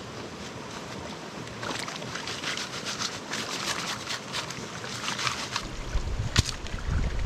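River water sloshing and gravel rattling as a sieve of dug-out stream gravel is worked in the water, with many small splashes. Near the end comes a low rumble and one sharp knock.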